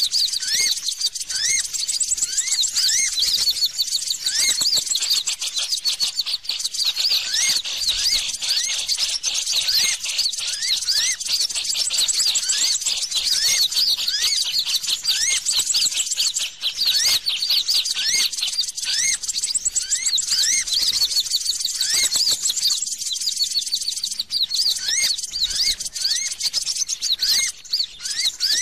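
Bird-lure recording (suara pikat): dense, continuous rapid chirping and twittering of small birds, with a short rising note repeated about once a second underneath.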